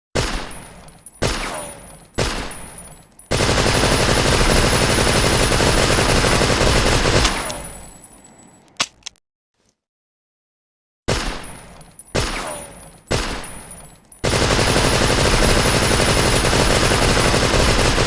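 Thompson submachine gun (Tommy gun) firing: three single shots about a second apart, then a long full-auto burst of about four seconds that trails off in echo. The whole sequence then repeats after a few seconds of silence.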